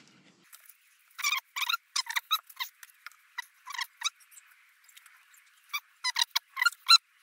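Quick, irregular bursts of sharp squeaks as a metal motorcycle front wheel hub is rubbed and turned in gloved hands. They start about a second in and pause briefly near the middle.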